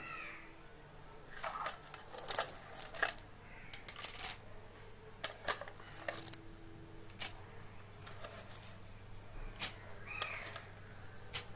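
Tempering (tadka) frying in hot oil in a steel kadai: mustard and cumin seeds with chana dal and urad dal give irregular sharp ticks and pops, some in quick clusters.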